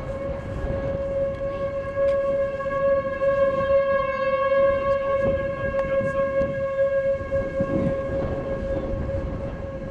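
Outdoor tornado warning siren sounding one steady, unwavering tone, swelling a little in the middle, with wind noise rumbling underneath. In tornado country such a siren is sounded to warn of a tornado.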